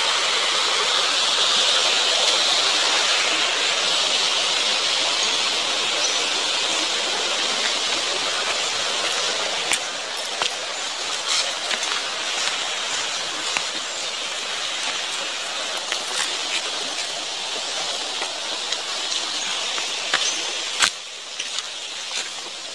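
Stream water rushing down a rock chute below a small stone weir, a steady hiss that fades from about ten seconds in. After that, scattered crunches of footsteps on dry leaf litter, with a sharp snap shortly before the end.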